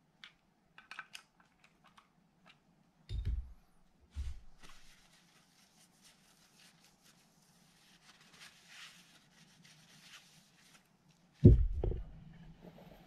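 Handling of a fishing reel's aluminium frame: a few small clicks, two dull knocks, then several seconds of a paper towel rubbing over the metal as it is wiped, ending in a louder thump as the frame is set down on the work mat about eleven seconds in.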